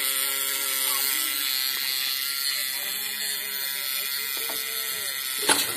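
Homemade battery-powered fish-stunner circuit running, a steady buzz with a high hiss. A sharp click comes near the end.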